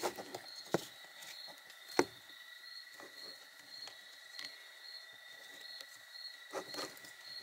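Canvas webbing strap of M56 suspenders being threaded and pulled through the loops of a metal lightweight rucksack frame: soft rustles and a few sharp clicks and taps of the strap hardware against the frame, the loudest about two seconds in and a quick group near the end. Underneath, insects trill steadily with a high pulse about twice a second.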